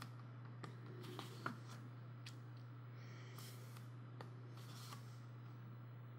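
Soft rustles and small ticks of glossy photo-book pages being turned by hand, faint and scattered, with the sharpest tick about one and a half seconds in. A steady low hum runs underneath.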